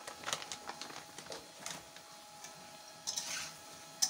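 Steel spoon clicking lightly against a steel bowl a few times while gram flour is spooned onto sliced potatoes, with a short scraping rustle about three seconds in.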